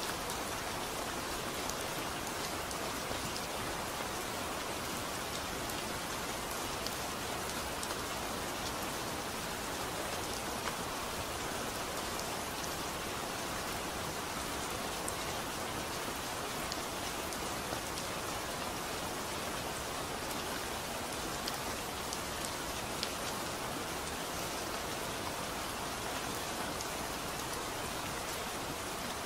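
Steady rain falling: an even hiss with scattered sharp ticks of single drops.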